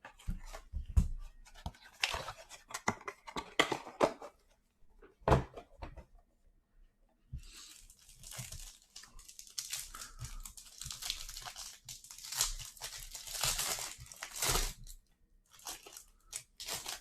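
Hands tearing open a cardboard hanger box of trading cards. Scattered clicks and short tears come first, then a longer stretch of tearing and crinkling from about seven seconds in.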